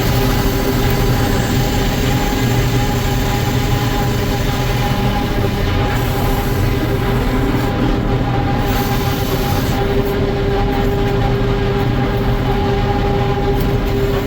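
Sawmill running: a steady, loud machine noise with a constant whine.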